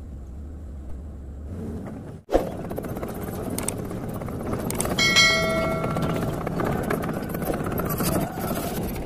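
A steady low hum, then from about two seconds in the noisy running of a crawler excavator with a steady clatter. About five seconds in, a short bell chime rings, a subscribe-notification sound effect.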